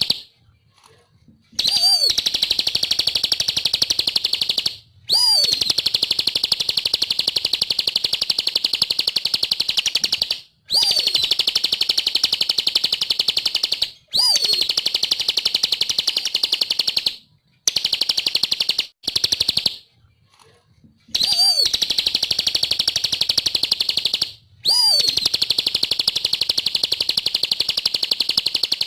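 Bar-winged prinia (ciblek) singing: runs of very rapid, high chattering notes, each lasting a few seconds and separated by short pauses. Several runs open with a quick swooping note.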